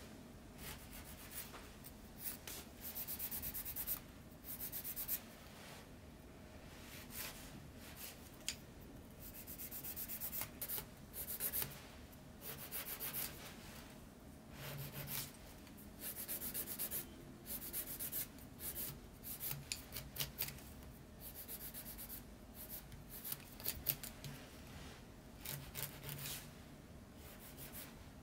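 Electric nail drill bit sanding gel polish on a fingernail, making short, irregular scratchy passes as the bit touches and lifts off the nail.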